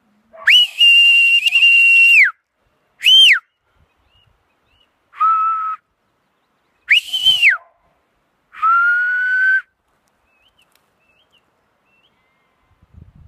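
A sheepdog handler's whistle commands to a working dog: five separate whistles. First comes a long, steady high note, then a short note that rises and falls. Next is a shorter, lower note, then another rising-and-falling high note, and last a lower note held for about a second.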